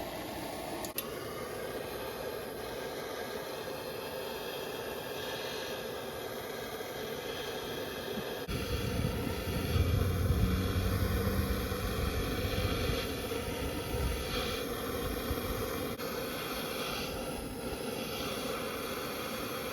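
Gas torch flame hissing steadily as it heats a stuck control-arm bolt to melt out the old rubber bushing. A deeper rumble swells in about halfway through, then eases.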